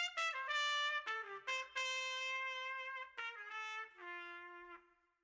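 Background music: a brass instrument plays a short line of held notes, the last ones lower, and the track ends near the end.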